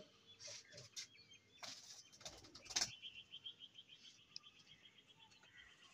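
Faint pigeon wing flaps in several quick bursts, then a rapid, even run of high bird chirps from about three seconds in.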